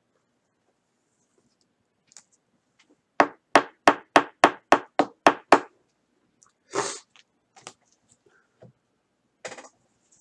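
A quick, even run of nine sharp knocks, about four a second, over roughly two and a half seconds. Short noisy bursts follow, about a second later and again near the end.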